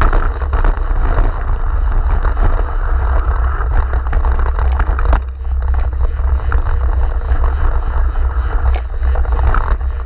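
Wind buffeting the microphone of a camera riding on a mountain bike descending rough dirt singletrack, with a steady low rumble and constant small rattles and knocks from the bike and tyres over the trail. It eases briefly a little past halfway.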